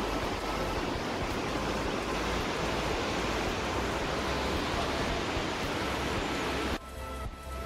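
A steady, even rushing outdoor noise with no rhythm or pitch. It cuts off suddenly near the end, leaving only faint background music.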